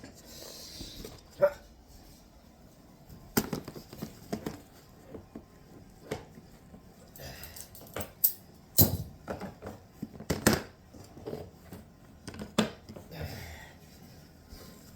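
Irregular clicks and knocks of a desktop computer case and its parts being handled, with a few short scrapes; the loudest knocks come near the middle.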